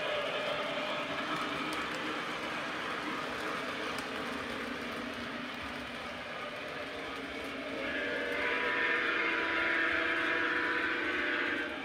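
Lionel Legacy Big Boy O-gauge model steam locomotive running on its track, its onboard sound system playing steam running sounds. About eight seconds in a steady higher-pitched sound comes in louder and holds.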